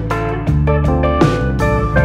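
Background music led by plucked guitar, with new notes struck about every half second.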